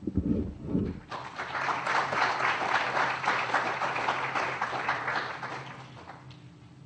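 Audience applauding to close a lecture: the clapping builds about a second in, holds steady, and fades out near the end. A low muffled thud sounds in the first second, before the clapping.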